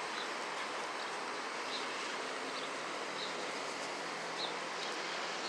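Outdoor street ambience while walking: a steady hiss of background noise, with faint short high chirps every second or so.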